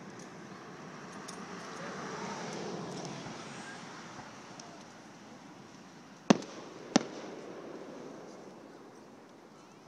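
Two aerial fireworks shells bursting far off: two sharp bangs about two-thirds of a second apart, a little past halfway, over a faint noisy background that slowly fades.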